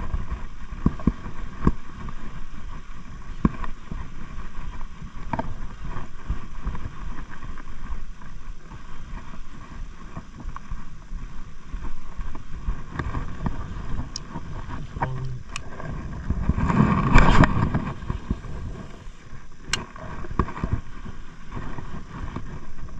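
Wind rumbling on the microphone and water lapping, with scattered small knocks and a louder rushing burst about seventeen seconds in.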